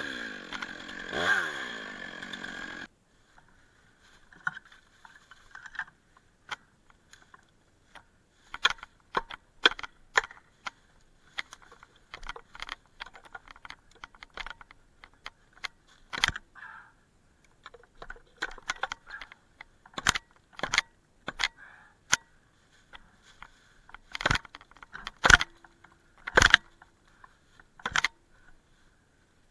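Stihl 661 two-stroke chainsaw cutting for the first few seconds, its pitch rising and falling, then cutting off abruptly. After that come scattered sharp clicks and snaps over a faint steady hum, several of them louder in the second half.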